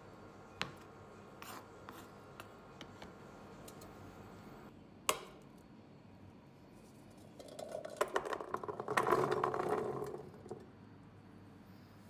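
A knife tapping a few times on a plastic cutting board while slicing, then a single knock. About seven and a half seconds in, Korean rice cakes (tteok) tumble into a stainless steel pot in a clattering rush lasting about three seconds.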